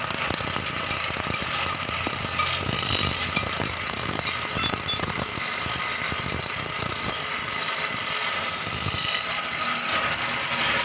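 Bench grinder running with the steel blade of a bolo knife held against its wheel: a steady high grinding whine with scraping.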